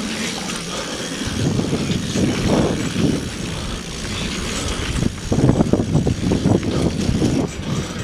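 Riding a Surly single-speed bike on a dirt trail: wind buffeting the microphone over the rattle and rumble of the tyres on the ground. It comes in uneven gusts and grows louder about a second in and again about five seconds in.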